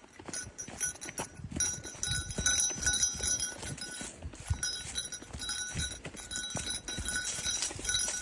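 Footsteps of a hiker walking a trail: irregular low thuds with a faint high jingle.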